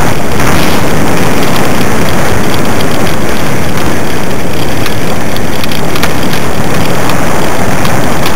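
Loud, steady rumbling noise from a dog-drawn dryland rig rolling fast over a rough grass-and-dirt track, mixed with wind on the microphone.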